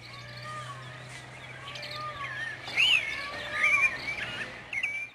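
Small birds chirping and twittering, loudest about three seconds in, over a steady low hum.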